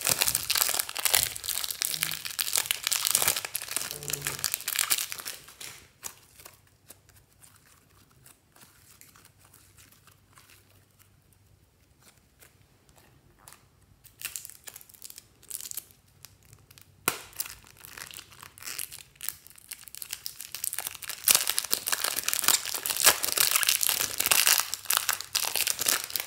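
Sticky slime being pulled and stretched off crinkling plastic film, a dense crackling that runs for about five seconds. It then goes much quieter with scattered soft clicks, and near the end the crackling returns as the slime is kneaded by hand.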